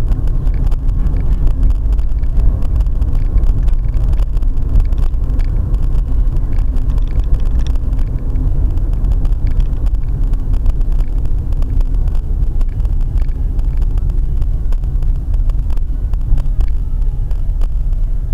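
Steady low rumble of engine and road noise inside a moving car, picked up by a dashcam's microphone, with scattered faint ticks.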